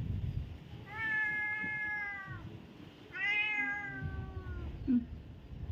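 Domestic cat meowing twice, two long drawn-out meows of about a second and a half each, the second one rising at its start and falling away at the end. A low rustling of handling runs underneath.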